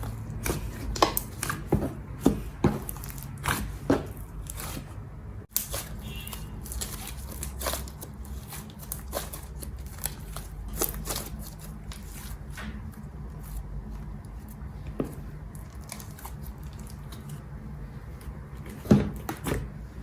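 Slime being squeezed and stretched by hand, making irregular sharp clicks and wet pops. The pops come thickest in the first few seconds and again near the end, over a steady low hum.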